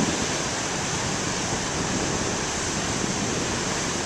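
Big waves breaking and surf washing onto the shore, a steady rush of noise with no single crash standing out.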